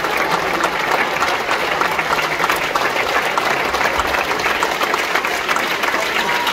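Theatre audience applauding steadily: many people clapping together at a curtain call, standing.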